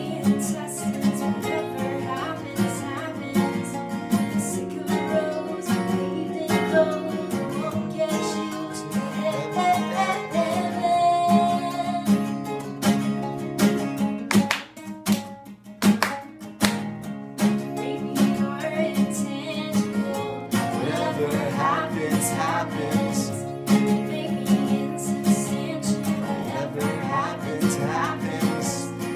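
Two acoustic guitars strumming a song, with singing over them. About halfway through, the strumming drops back briefly and a few sharp hand claps are heard before the full strum comes back.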